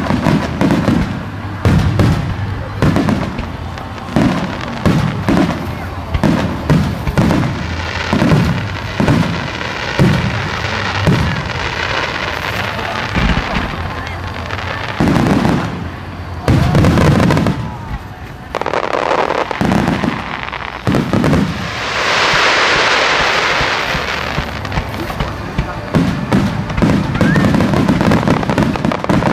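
Starmine fireworks: shells fired and bursting in rapid succession, several booms a second. There is a brief lull about 18 seconds in. Then comes a loud steady hiss lasting about two seconds, and the rapid booming resumes near the end.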